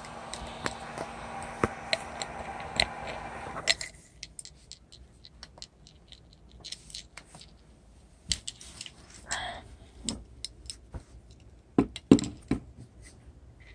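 A small motor or fan runs with a steady hum and then switches off suddenly about four seconds in. Scattered clicks and short scraping and handling noises follow.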